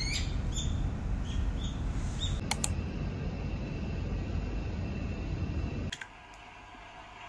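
Low, fluctuating rumble of wind on the microphone, with a few faint clicks near the middle. It cuts off about six seconds in, leaving quiet room tone.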